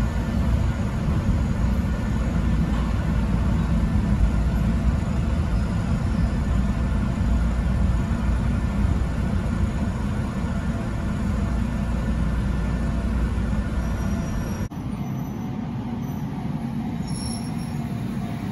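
Electric train running, heard from inside the front cab: a steady low rumble of motors and wheels on the rails. About fifteen seconds in it cuts abruptly to quieter station-platform ambience.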